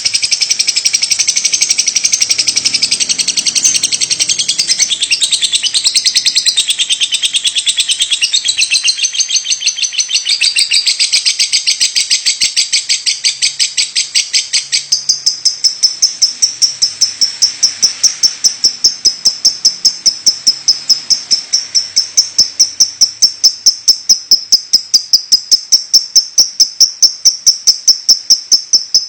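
Lovebird calling non-stop in a rapid, unbroken run of sharp, high chirps, several a second. About halfway through the run settles into a narrower, more even pulse that grows louder toward the end.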